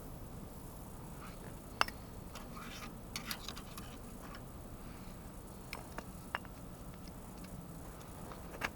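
Metal wrenches clinking and tapping against metal parts. There are sharp single clicks about two seconds in and near the end, with a short cluster of clinks around the middle, over a faint steady hum.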